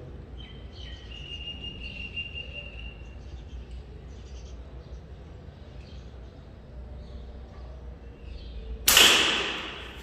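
Pocket slingshot fired once about nine seconds in: a sudden loud snap of the released flat rubber bands, with the shot striking the target this time audibly, echoing for about a second in the bare room.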